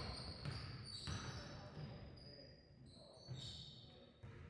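A basketball bouncing a few times on a hardwood gym floor, with the high squeaks of sneakers on the court.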